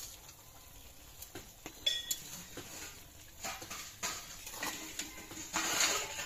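A spatula scraping and clinking against a karahi (wok-style pan) while small fish and spinach are stirred. The strokes are irregular, with one ringing clink about two seconds in and a longer, louder scrape near the end.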